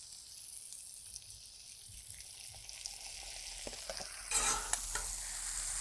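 Kielbasa, pierogies and onions sizzling on a hot Blackstone flat-top griddle as a mustard and vinegar marinade is poured over them, a steady hiss that swells louder about four seconds in.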